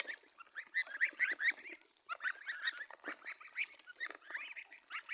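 A flock of ducks and geese calling, with many short honking calls overlapping in quick succession.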